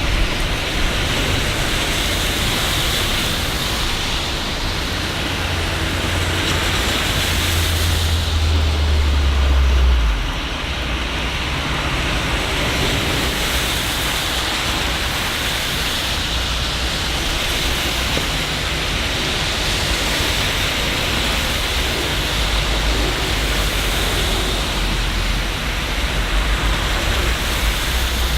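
Steady rain falling as an even hiss. A low rumble builds up and cuts off about ten seconds in, then comes back more faintly near the end.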